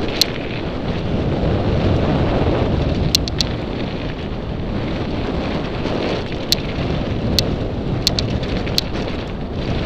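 Wind buffeting a helmet camera's microphone over the rumble of mountain bike tyres on a dirt trail, a steady noise throughout. About eight sharp ticks stand out, scattered through it.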